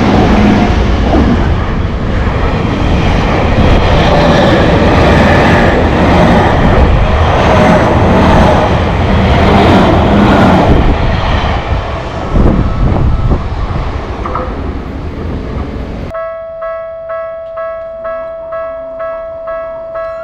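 Japanese electric train passing at close range: a loud, noisy rumble of wheels on rail that fades away after about twelve seconds. About sixteen seconds in it cuts sharply to electronic music with a held note and a pulsing beat.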